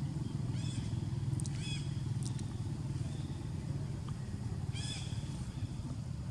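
A steady low engine hum runs throughout. Three short, high chirping animal calls come through it: about a second in, near two seconds, and near five seconds.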